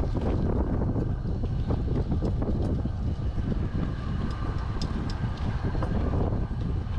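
Strong wind of an approaching tornadic storm buffeting the microphone: a dense low rumble with no letup. A spoon clinks a few times against the frying pan as it stirs.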